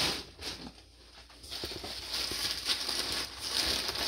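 Plastic bags and clothing rustling and crinkling in irregular surges as items are handled and set down into a cardboard box.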